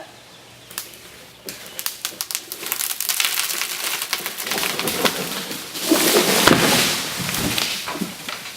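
Dry branches and twigs of a felled dead tree crackling and snapping in a rapid, irregular run of clicks. It builds from about a second and a half in and is loudest near the end.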